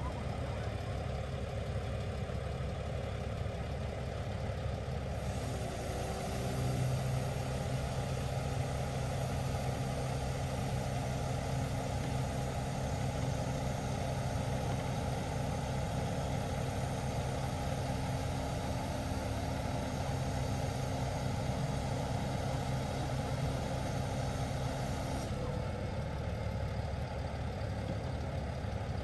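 Scania 94 P260 crane truck's diesel engine running to drive the Fassi F380 knuckle-boom crane's hydraulics while a boat hangs from the boom. About six seconds in a steady low hum comes in and the sound grows a little louder, dropping back about four seconds before the end.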